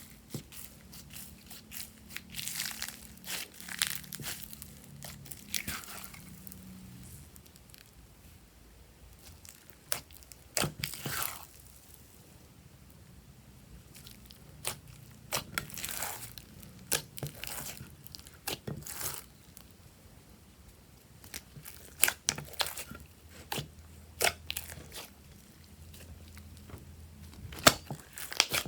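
Crunchy slime being squeezed and pressed, giving irregular clusters of sharp crackles and crunches with short quiet gaps between.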